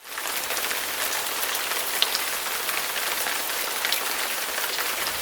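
Heavy rain pouring down steadily, a dense hiss of countless drops pattering on surfaces.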